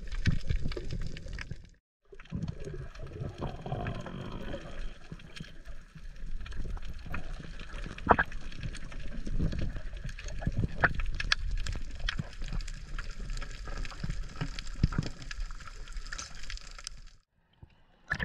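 Underwater sound from a diving camera: a muffled rush and low rumble of water, with scattered sharp clicks and pops. It drops out briefly twice where the clips change.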